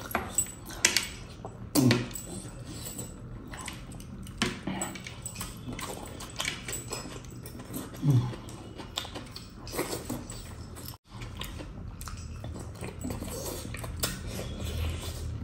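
Close-up eating by hand: chewing and mouth-smacking on mutton and rice, with metal rings and bracelets clinking, and a few short falling 'mm' sounds from the eater.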